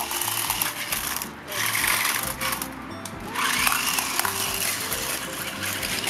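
Whirring electric drive motors of a battery-powered RC stunt car driving over brick pavers, starting and stopping a few times, over background music.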